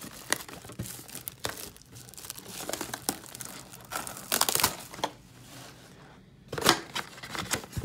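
A cardboard trading-card box being handled and torn open, with irregular rustling, scraping and tearing of the card stock. The loudest strokes come a little after four seconds and again near seven seconds.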